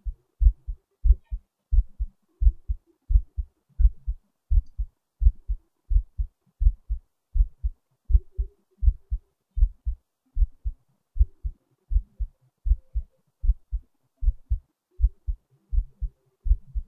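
Heartbeat recorded close up: steady low double thumps, lub-dub, at about one and a half beats a second, with a faint hum underneath.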